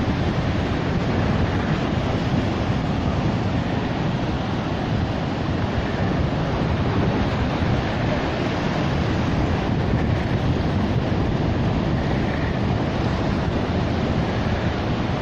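Ocean surf washing onto a sandy beach in a steady wash of noise, with wind rumbling on the microphone.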